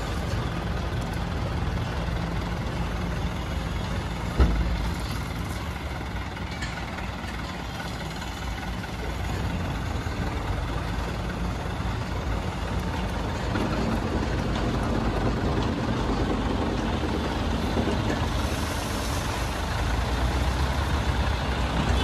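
Diesel tipper truck running while it finishes dumping a load of crushed stone and lowers its tipping bed, with one loud bang about four seconds in. From about halfway the engine note rises and grows louder as the truck pulls forward.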